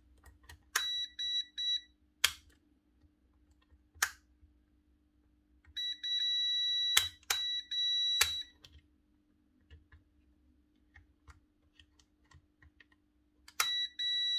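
Digital multimeter's continuity beeper sounding a steady high beep three times: short and stuttering about a second in, for about three seconds in the middle, and again near the end. Each beep marks the probes finding a closed circuit through the hammer drill's power switch, which shows the switch conducts. Sharp clicks fall between the beeps.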